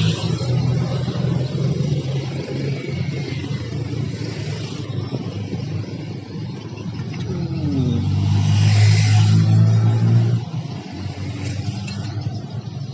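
A vehicle engine running steadily close by, with road traffic passing. The engine sound swells for about two seconds from around eight seconds in, then drops off suddenly.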